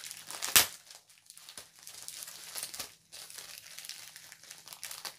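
Plastic packaging of a kit crinkling as it is handled and picked open by hand, with one sharp crack about half a second in.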